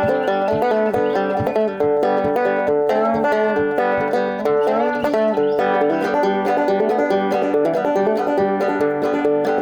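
Banjo being picked, a quick run of plucked notes with some sliding notes, played without singing.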